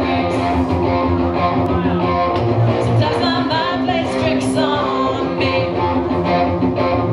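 Live rock band playing: a female lead vocal sung over distorted electric guitars, bass and a drum kit with cymbals.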